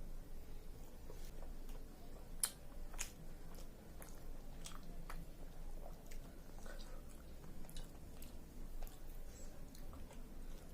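A person chewing a mouthful of chicken biryani, with scattered wet mouth clicks and smacks, the sharpest about two and a half seconds in.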